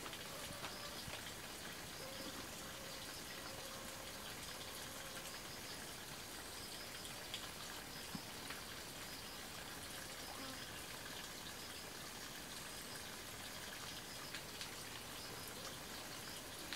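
Quiet forest ambience: a steady, even hiss with faint, high chirping calls repeating now and then, and a few soft clicks.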